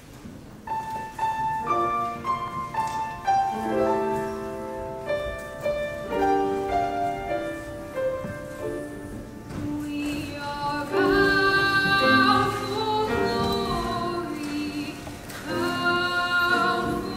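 A grand piano starts playing about a second in, with a treble choir of young voices singing along; the sound grows fuller about halfway through.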